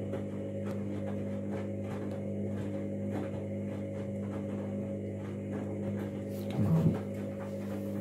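Candy front-loading washing machine running early in a synthetics cycle: a steady electrical hum as it fills and turns its drum, with faint regular ticking. A short, louder wavering noise comes in near the end.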